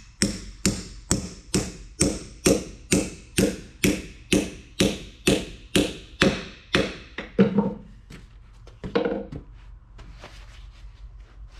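Steady hammer taps on a steel countershaft gear from an Eaton 13-speed auxiliary section, marking its timing teeth, about two blows a second, each ringing briefly. The tapping stops about seven and a half seconds in, followed by a couple of lighter knocks.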